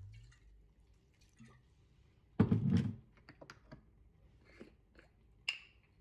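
Kitchen containers and utensils handled at the stove while seasoning a pan. A loud clattering knock comes a little over two seconds in, followed by a quick run of small clicks, and a sharp clink that rings briefly near the end.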